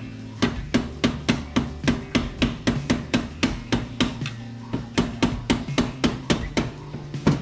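Hand tool on the scooter's engine mounting hardware, clicking or tapping sharply about three to four times a second with a few short pauses, over faint background music.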